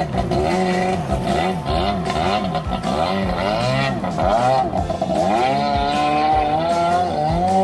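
Two-stroke engine of a Kawasaki stand-up jet ski running under way, its pitch rising and falling about once a second as the throttle is worked, then holding steadier near the end.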